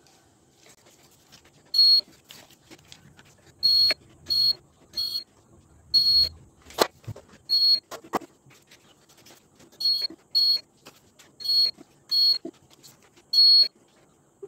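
Hand-press impulse heat sealer beeping as plastic ice tubes are sealed: about eleven short, high, single-pitch beeps at irregular spacing, with a couple of sharp clicks of the sealing arm in the middle.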